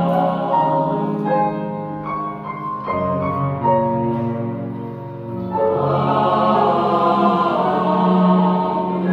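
Church choir singing an anthem in sustained, held chords with keyboard accompaniment; the sound thins and softens in the middle, then swells fuller and louder a little past halfway.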